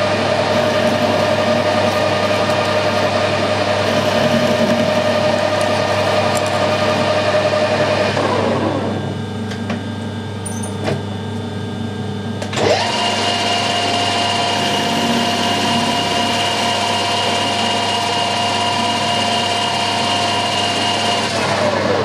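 Metal-turning lathe running with a steady whine from its motor and headstock gearing, winding down to a stop about 8 seconds in, starting up again a few seconds later, and winding down once more near the end.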